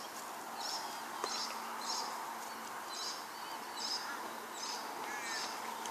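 Birds calling: a short high chirp repeated about once a second, over a faint steady outdoor background.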